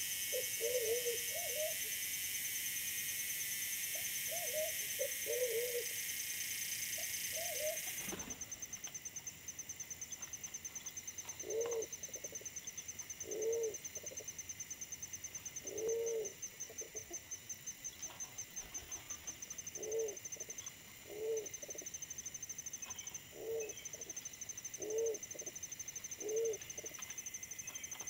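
Wild forest pigeons cooing: short, low coos, in pairs during the first several seconds and then singly every second and a half or so. A steady high-pitched trill runs underneath.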